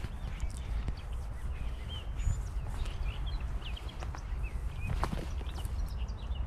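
Footsteps on a dirt path through dry brush, with a sharp crackle about five seconds in, while small birds chirp and warble over a steady low rumble.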